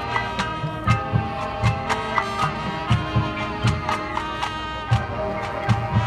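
High school marching band playing its competition show: horns and woodwinds holding and moving between notes over a steady beat of drum hits.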